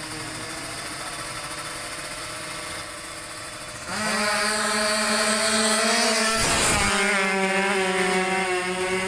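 Two-stroke drag-racing motorcycle engine coming in loud about four seconds in and held at high, steady revs, with a short rasp and a slight drop in pitch a few seconds later.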